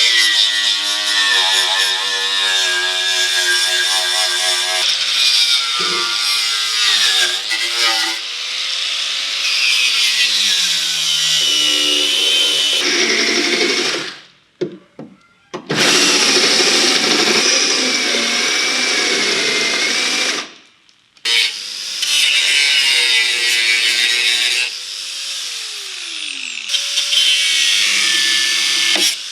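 A handheld power tool working on car-body sheet metal in several runs. Its motor pitch rises and sags under load, it stops twice, and near the end it winds down with a falling whine.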